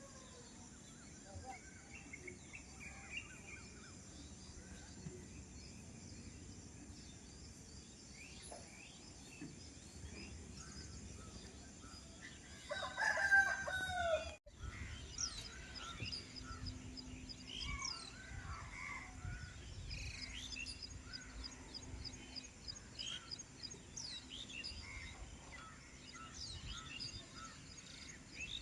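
A rooster crows once, about halfway through, the loudest sound here, cut off abruptly at its end. Small songbirds chirp and call around it, more densely after the crow, including a rapid, evenly repeated high trill.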